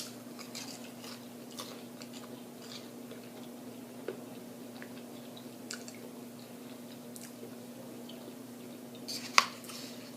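A person chewing food with open-mouthed smacks and small wet clicks over a steady low hum, with one sharp, louder smack about nine seconds in.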